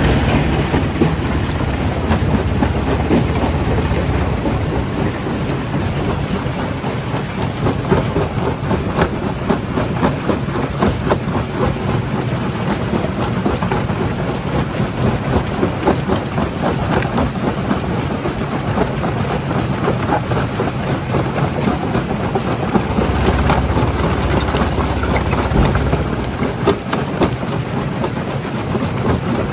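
Stone crusher, a primary jaw crusher, breaking rock: a low machine rumble under a constant, irregular clatter and crunch of stones. The rumble gets heavier for a few seconds near the end.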